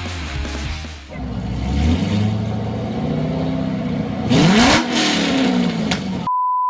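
A car engine revving up and down, hardest about four seconds in, then a sharp clatter like a phone hitting the concrete pavement just before a censor bleep cuts in at the end.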